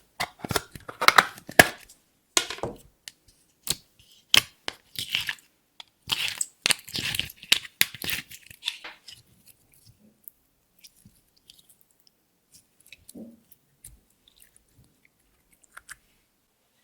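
Clear slime being squished and mixed by hand, with sticky crackling clicks and squelches in close, dense runs for the first half, then only scattered soft clicks.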